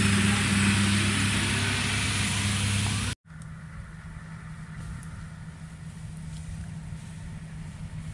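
Rice combine harvester engine running with a loud steady hum up close; about three seconds in the sound cuts abruptly to a quieter, steady hum of a combine working further off.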